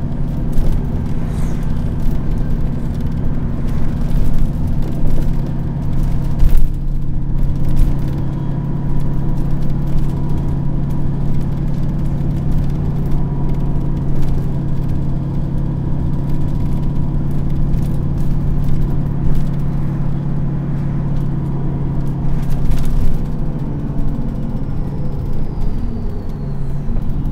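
Dennis Trident double-decker bus engine thrashing, heard from inside the bus, with a steady droning note and occasional knocks and rattles from the body. Near the end the engine note drops and wavers.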